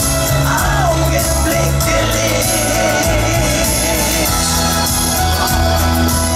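Live band playing a schlager song with a steady bass beat. A sung note is held with vibrato through the first half.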